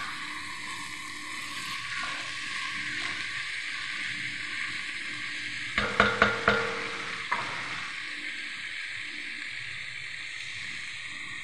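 Diced vegetables sizzling steadily in an enamelled pot. About six seconds in comes a quick run of four or five sharp knocks with a short ring, and one more knock a second later.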